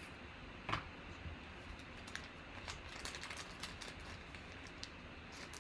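A run of light, irregular clicks and taps at a desk, with one sharper knock about three-quarters of a second in.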